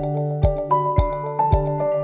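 Background music: a gentle melody of held notes over a steady beat, about two beats a second.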